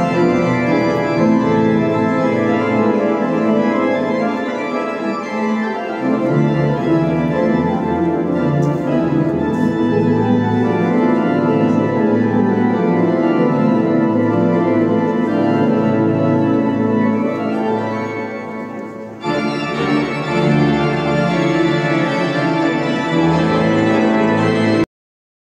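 Pipe organ playing full, sustained chords. A deep bass line comes in suddenly about six seconds in, and the music jumps abruptly to a new passage about three quarters of the way through.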